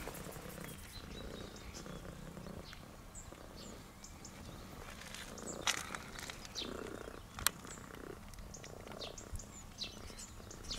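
Tortoiseshell cat purring, the purr swelling and fading in slow waves with its breathing. A few sharp clicks and faint, short high chirps sound over it.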